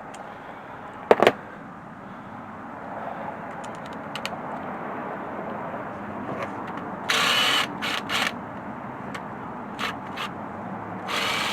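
Hand tools and engine parts being handled during timing-chain work: one sharp metallic clink about a second in, then brief noisy bursts of tool or parts handling around two-thirds of the way through and again near the end, over a steady background noise.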